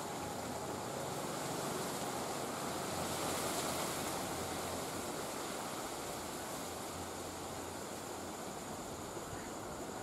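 Steady outdoor wind noise, a continuous rushing hiss that swells a little about three to four seconds in, over a faint low hum and a faint steady high-pitched tone.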